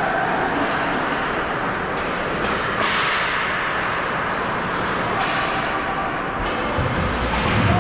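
Ice hockey play on a rink: a steady scraping wash of skates on the ice, with several sharp clacks of sticks and puck and a dull thump near the end.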